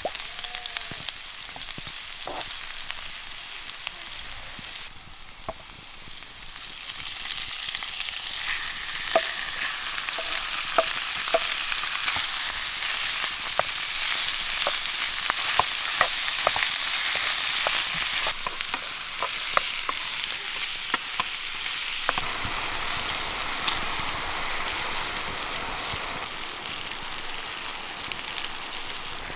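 Chopped onion sizzling in oil in a black frying pan over a campfire, stirred with a wooden spatula, then minced beef added and frying louder, with scattered pops and spatula taps. About three quarters of the way through, the steady low rush of a stream's running water comes in under the sizzle.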